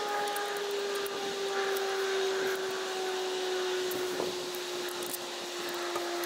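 A distant engine's steady humming drone, slowly falling in pitch, with a few light clicks and a small knock about four seconds in.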